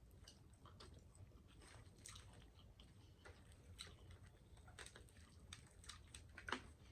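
Faint close-up chewing of fried croaker fish: scattered small crunches and mouth smacks, with a sharper one near the end.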